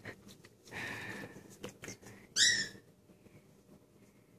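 Doberman pinscher giving one short, high-pitched whine about two and a half seconds in, after some soft rustling of a hand petting its coat.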